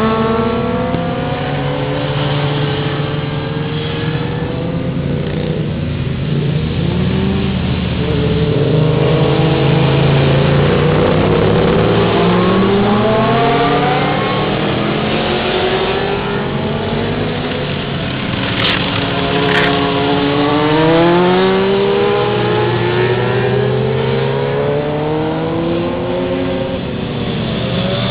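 Several sport motorcycles lapping a circuit, their engines overlapping and rising and falling in pitch as they come through the corner and pass by. Two sharp clicks a little past halfway.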